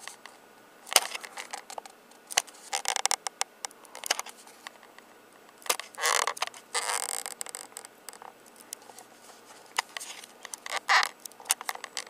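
Handling noise from a handheld camera: scattered sharp clicks and taps with a few short rustling scrapes, the longest about six to seven and a half seconds in.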